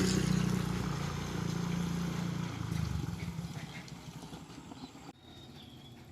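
A motorcycle engine running steadily and fading away as it moves off, gone after about three and a half seconds.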